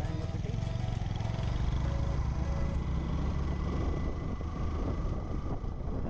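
Engine and road noise heard from a moving vehicle: a steady low rumble with a faint whine that rises slowly in the middle, as the vehicle picks up speed.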